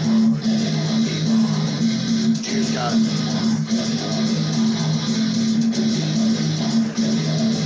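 Guitar music with a repeating low bass pattern.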